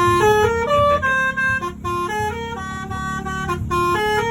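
Bus basuri (telolet) melody horn playing a quick tune of short and held notes, with a low rumble underneath.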